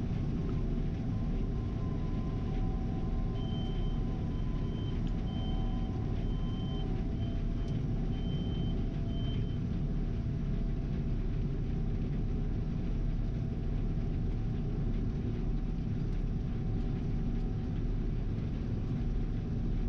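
Gleaner R72 combine running steadily while harvesting, a continuous low drone. A few seconds in, a short series of about six high beeps sounds, then stops.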